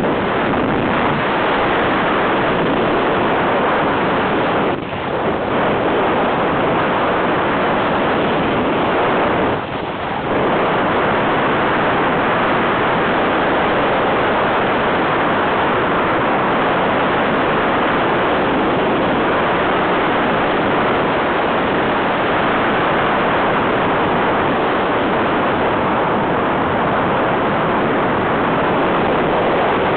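Wind rushing over the microphone of a camera on a hang glider in flight: a loud, steady roar of airflow that dips briefly about five and ten seconds in.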